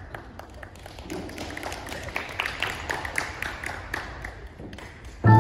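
Scattered light taps and clicks, then near the end a percussion ensemble's marimbas and vibraphones come in with a sudden loud first chord.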